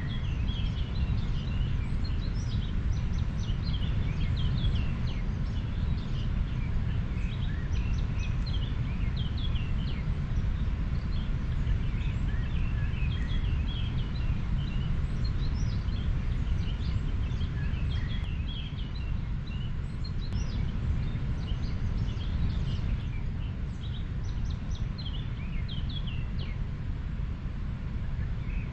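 Steady low rush of a flowing river, with many small birds chirping over it.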